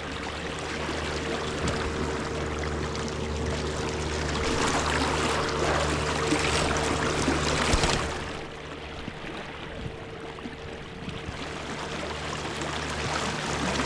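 River water running and splashing, louder for a few seconds in the middle and dropping off suddenly about eight seconds in, over a steady low hum.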